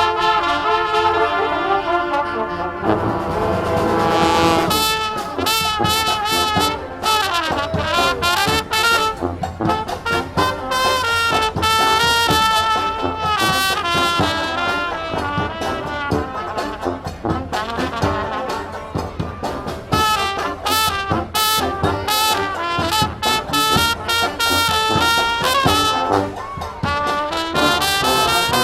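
Street marching band playing live: trombones and trumpets over drums. Held brass chords open, and about five seconds in it breaks into a busy, rhythmic groove with steady drum hits.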